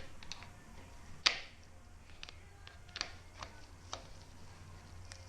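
A few separate sharp clicks and light knocks from hands and a tool working on the bike's STI levers on the handlebar, the loudest about a second in, over a faint steady hum.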